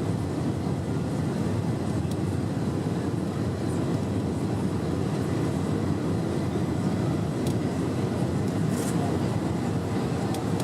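Steady low roar of an Airbus A320-200's engines and rushing air, heard inside the passenger cabin during the descent, with a few faint ticks.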